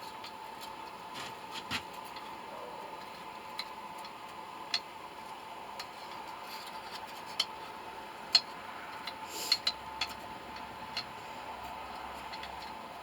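Irregular light metallic clicks and taps, a second or more apart, of a tool against the crucible while slag is skimmed from molten brass. Under them runs a steady faint hum.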